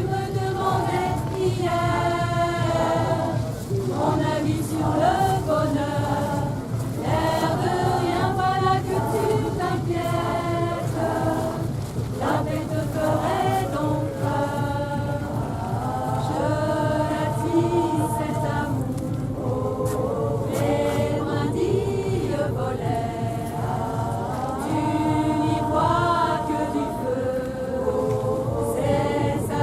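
Music with choral singing: several voices carrying a slow melody over a steady low note underneath.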